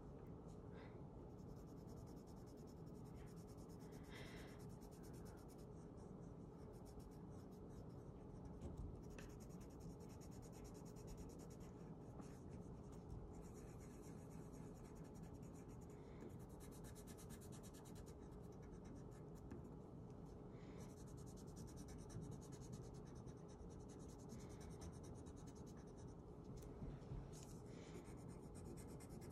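Faint scratching of a colored pencil on paper, coloring in with short strokes that come in stretches with brief pauses.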